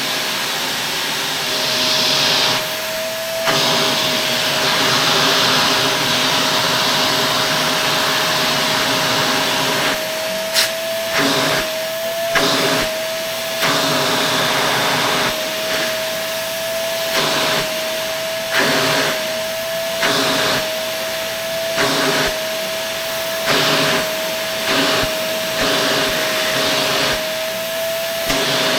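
Shark Navigator Lift-Away vacuum running, a steady motor whine under a loud rush of air, vacuuming the dust out of another Shark's filter. From about ten seconds in, the rush dips and swells about once a second as the suction is worked over the filter.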